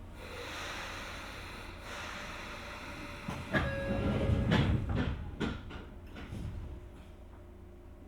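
Inside a Sotetsu 8000 series train car: a hiss rises, then about three and a half seconds in comes a louder cluster of clunks and rattles with a brief steady tone, fading away after a couple of seconds.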